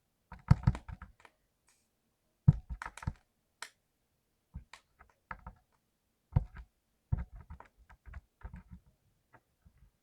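Mechanical keyboard with clicky blue switches being typed on in short irregular bursts of sharp key clicks.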